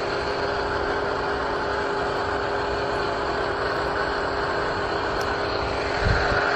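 A motor running steadily at a constant speed, an even hum that doesn't change pitch, with a low bump near the end.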